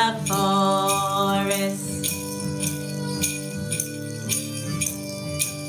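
Children's sing-along song with guitar and harmonica: a voice holds the word "forest", then the instruments carry on alone. Jingle bells and an egg shaker are shaken along on the beat, about twice a second.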